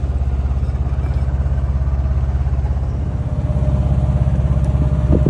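Sailboat's auxiliary engine running steadily under way: a low, even drone with a fast regular beat. A few sharp clicks near the end.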